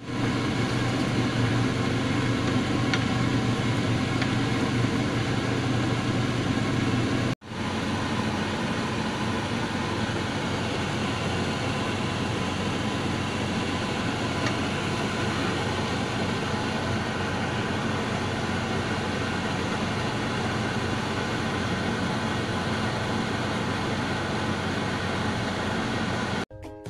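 A steady mechanical hum with a low drone, breaking off for an instant about seven seconds in.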